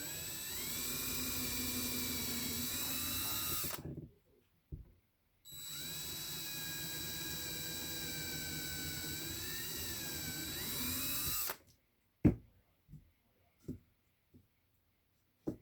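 Small electric drill boring holes in air-dry clay, running in two spells of several seconds with a short pause between, its whine wavering in pitch as the bit bites. A few short sharp knocks follow near the end.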